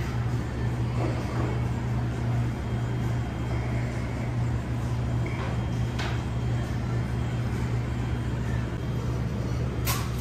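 Steady low machine hum of a pizza shop's running equipment, such as fans, coolers and oven. There is a faint click about six seconds in and a sharper click near the end.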